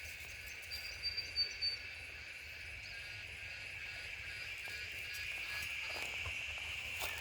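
Steady chorus of insects chirping, like crickets, with a few brief high chirps about a second in.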